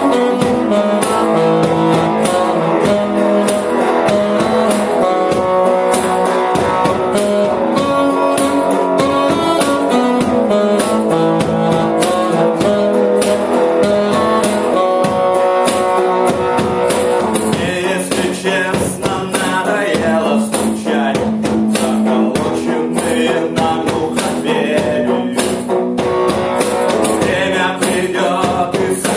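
Band music with drums, guitar and sustained instrumental notes, the instrumental part of a song.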